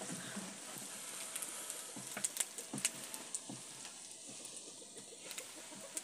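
Foil-and-leaf-wrapped fish sizzling over a wood fire: a steady hiss of juices bubbling inside the parcel, with scattered small pops and crackles.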